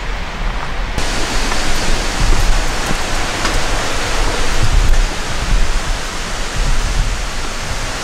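Steady rushing of river water and small cascades, a dense hiss that turns brighter about a second in, over a low rumble on the microphone.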